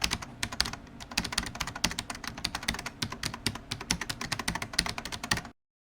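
Typing on a computer keyboard: rapid, irregular key clicks that cut off abruptly near the end.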